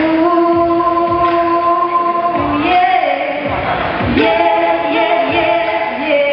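Two girls singing a duet through microphones, holding long notes, with a slide in pitch about three seconds in before the next held note.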